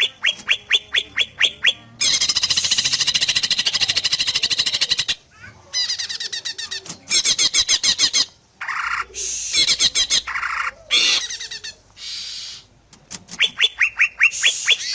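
Cucak ijo (green leafbird) singing loudly in varied phrases: a run of quick sharp notes, then a fast continuous trill of about three seconds, then assorted shorter phrases with brief pauses, and another run of quick notes near the end.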